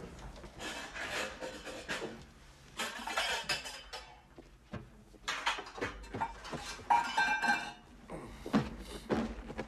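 Pots, pans and other kitchenware clattering and clinking in several bursts as a low kitchen cupboard is rummaged through, with a hard briefcase set down on the counter near the end.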